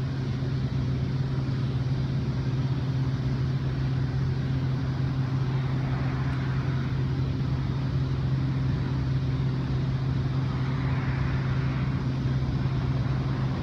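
Steady low mechanical hum with a constant drone and a faint hiss above it.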